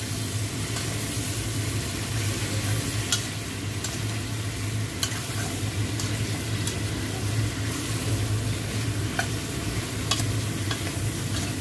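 Shrimp and mixed vegetables sizzling as they are stir-fried in a steel pot, with a metal spatula scraping and clicking against the pot now and then. A steady low hum runs underneath.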